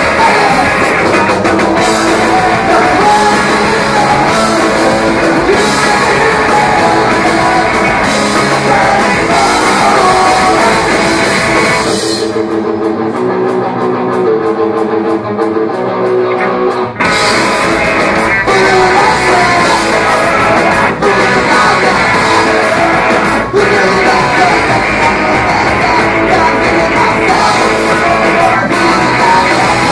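Live punk rock band playing loud: distorted electric guitars, bass and drums with vocals. About twelve seconds in, the drums and bass drop out for about five seconds, leaving the guitar alone, and then the full band crashes back in.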